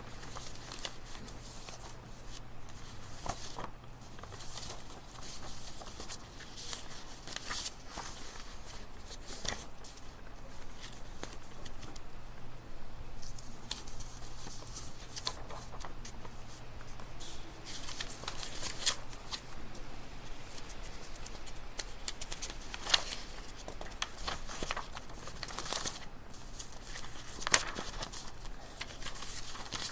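Library ambience: frequent short rustles and clicks of paper and small objects being handled, over a steady low room hum, with two sharper knocks near the end.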